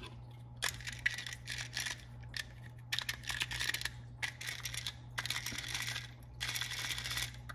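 Plastic gearbox parts of a three-motor singing fish being handled and turned: small plastic clicks and several stretches of scraping, plastic rubbing on plastic, over a steady low hum.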